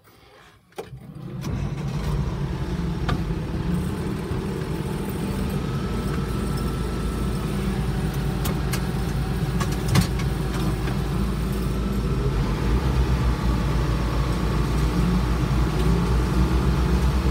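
International Harvester 1086 tractor's six-cylinder turbo diesel starting up after a few clicks, catching about a second and a half in and then running steadily, heard from inside the cab. A single sharp knock sounds about ten seconds in.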